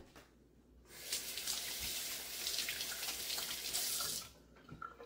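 Sink faucet running for about three and a half seconds while hands are washed under it, turned on about a second in and shut off about four seconds in.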